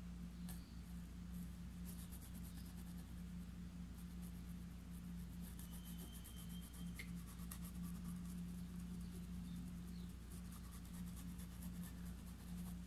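Paintbrush rubbing acrylic fabric paint onto cloth stretched in a wooden embroidery hoop: faint, rapid scratchy strokes over a steady low hum.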